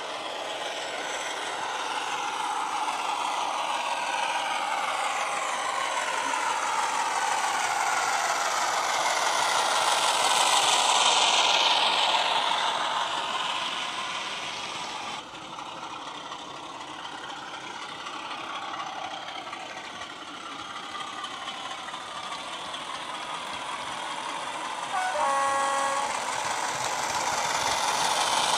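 An OO-gauge model Class 33 diesel and its wagons run along the track. The locomotive's DCC sound decoder plays the diesel engine through a small bass-enhanced speaker, mixed with the rolling noise of the wheels, swelling as the train passes about ten seconds in and then fading. Near the end the model's horn gives one short blast.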